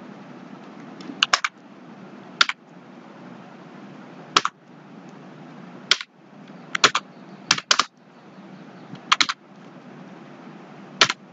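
Computer keyboard being typed on slowly, one key at a time: about a dozen separate keystrokes, some in quick pairs, at irregular gaps over a steady low hiss.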